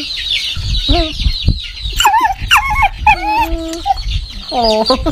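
Chickens clucking with quick high chirps throughout, and a few longer wavering pitched calls about two seconds in and near the end.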